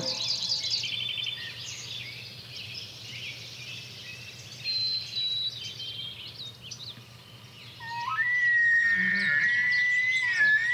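Wild birds chirping and trilling. About eight seconds in, a bull elk bugles: a rising whistle that climbs and holds high and steady for a few seconds.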